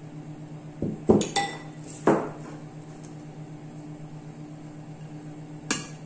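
Kitchen dishes clinking and knocking against each other and the tabletop: a quick cluster of knocks about a second in, another about two seconds in, and one more near the end, over a steady low hum.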